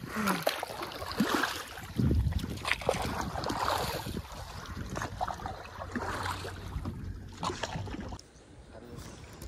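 Paddle strokes splashing and water lapping against the hull of a small wooden outrigger canoe, with wind on the microphone. The sound drops quieter over the last second or so.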